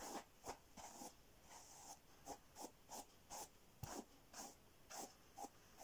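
Faint strokes of a hairbrush being drawn through long hair: a dozen or so short swishes, about two or three a second.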